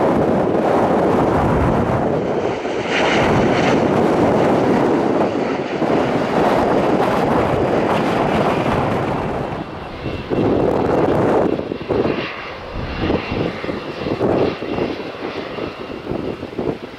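Jet airliner engines on landing, a loud steady rush mixed with heavy wind buffeting on the microphone. About ten seconds in the sound drops and changes, and a faint steady high whine sits over the noise after that.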